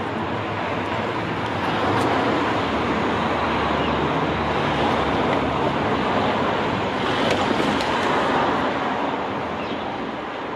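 Road traffic passing: a broad rushing tyre-and-engine noise that swells over the first two seconds, holds, then fades near the end. There is no siren tone.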